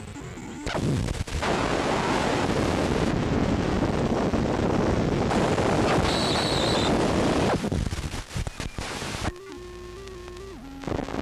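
A loud rushing noise, like static or a rumble, starting just under a second in and cutting off sharply about eight seconds later, with a brief high beep partway through. Quieter low steady tones follow, stepping in pitch near the end.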